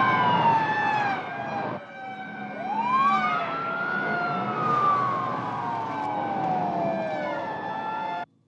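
Police car sirens wailing as patrol cars speed past, over the noise of their engines. The pitch glides up and then slowly falls over several seconds, and the sound cuts off suddenly near the end.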